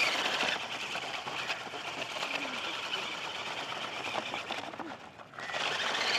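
Small electric motor and plastic gearbox of a toy tractor running with a steady high whir while it pulls a loaded trailer over sand. The whir drops about five seconds in, then picks up again just before the end.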